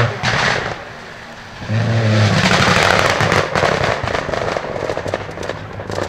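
Rally car engine at full throttle, fading briefly and then coming back on the throttle, followed by a rapid string of sharp exhaust pops and crackles as the driver lifts off.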